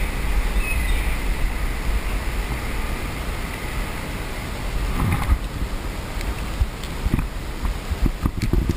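Steady low wind rumble on the microphone. Near the middle and toward the end come a few short knocks and rustles as rope and climbing gear are handled.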